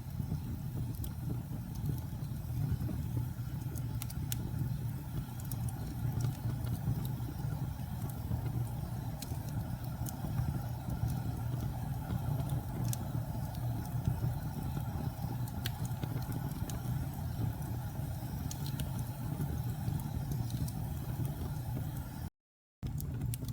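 Wood fire burning in a fireplace: a steady low rumble of the flames with scattered sharp crackles and pops. The sound drops out completely for about half a second near the end.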